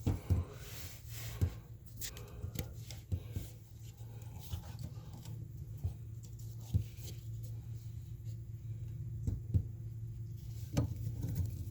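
Scattered light clicks and rubbing from hand work on a bathtub overflow plate and its screws, over a steady low hum.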